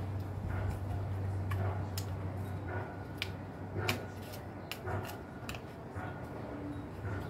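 Cardboard honeycomb core of an IKEA LACK shelf crackling and snapping in short, irregular clicks as it is pressed and folded over by hand, over a low steady hum.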